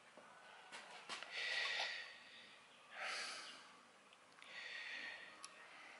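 Soft breaths close to the microphone, three in a row, with a few faint light clicks as hands handle the quilting machine's metal pulley and belt assembly.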